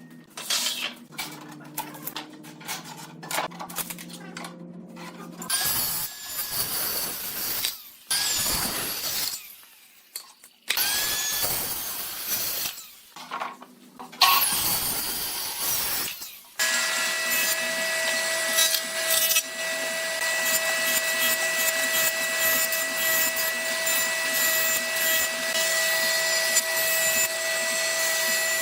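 Power tools working wood: a series of short, separate cuts and clicks, then a power tool running steadily from a little past halfway on.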